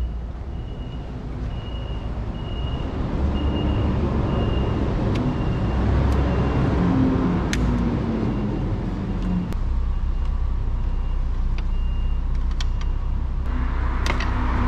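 A motor vehicle running with a steady low rumble, under a high electronic beep repeating about one and a half times a second that stops a little before the end. A few sharp clicks, and a hiss rises near the end.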